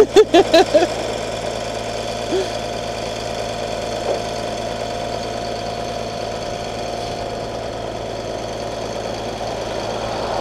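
A man laughs in a few short bursts at the start, over a vehicle engine idling steadily.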